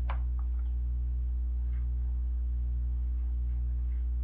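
Steady low electrical mains hum, with a few faint, short rustles.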